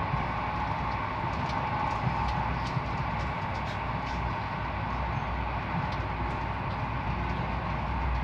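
Passenger train running at speed, heard from inside the carriage: a steady rumble and rush of wheels on rail, with scattered light ticks.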